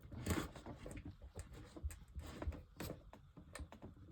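Faint, scattered clicks and knocks of hands handling wires and a plug; no alarm tone sounds.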